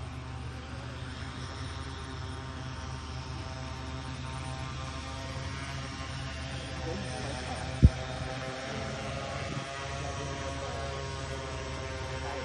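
Rotors of a small homemade multirotor spraying drone whirring steadily as it hovers and flies low, a hum of many tones that wavers slightly in pitch. A single sharp thump about eight seconds in.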